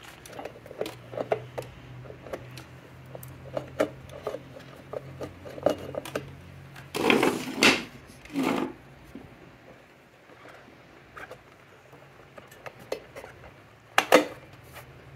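Hands handling and fitting parts on a Vespa scooter engine: scattered small clicks and light metal knocks, a louder clattering rustle about seven seconds in, and a sharp knock near the end.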